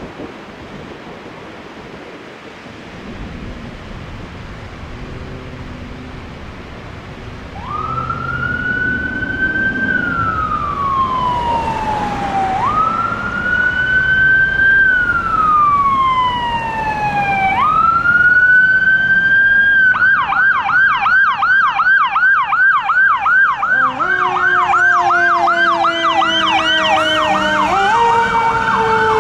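Electronic siren of a 2019 Pierce Enforcer fire engine responding to a call. After several seconds of road noise it starts with three slow wails, each rising quickly and falling slowly, then switches to a fast yelp of about three cycles a second. A lower, nearly steady tone joins in near the end.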